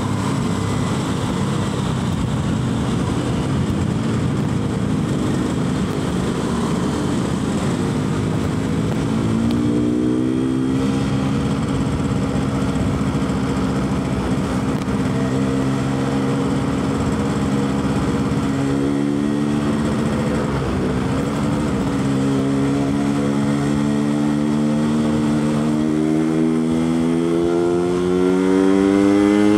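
Yamaha RX-King's two-stroke single-cylinder engine running through its standard exhaust while riding, over wind and road noise. The engine note holds steady for a long stretch, then rises as it revs up near the end.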